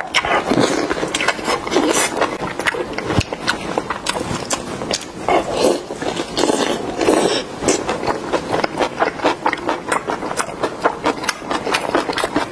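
Close-miked wet chewing and lip smacking of Korean rice sausage with spicy kimchi: a rapid, continuous run of wet clicks and squelches, with heavier mouthfuls about two seconds in and again around five to seven seconds in.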